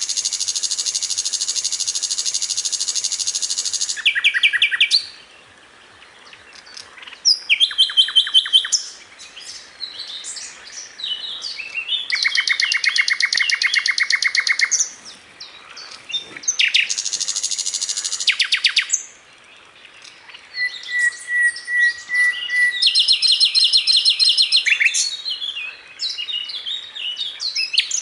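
Sikatan londo, a flycatcher, singing in phrases of very fast, buzzy trills of rapidly repeated notes, broken by short pauses. A thin, steady whistle comes about two-thirds of the way through.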